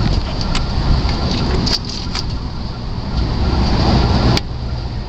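A few light clicks and knocks over a steady low rumble as a 1996 Jeep Grand Cherokee ZJ's front wheel bearing is wiggled back and forth by hand. The small noise comes from the rocking alone: the bearing has no slop and does not grind.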